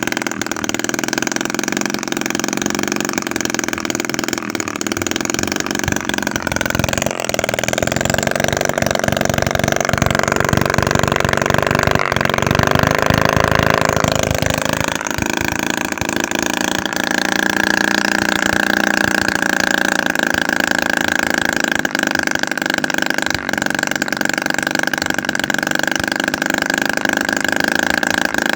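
Homemade 7cc two-stroke engine, built from a used refrigerator compressor (25 mm bore, 16 mm stroke), running steadily at high speed. About seven seconds in its note shifts and it runs harder for several seconds, then settles back to a steady tone.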